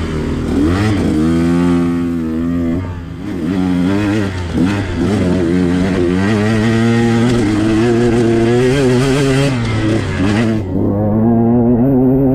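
2021 KTM 125XC dirt bike's 125 cc two-stroke engine being ridden, its pitch rising and falling again and again as the throttle is worked. A hiss sits over it and cuts off suddenly near the end.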